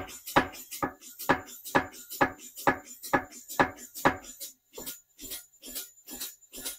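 Air-driven (pneumatic) power hammer cycling under a light touch on its foot pedal, the ram and top die coming down about twice a second in a steady run of metallic strikes. The strikes grow lighter over the last couple of seconds.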